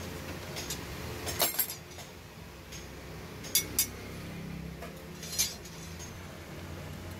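Flat steel strips, salvaged leaf spring, clinking against each other as one is pulled out of a stack and handled: a few sharp ringing clinks, two close together early on, two more in the middle and one near the end.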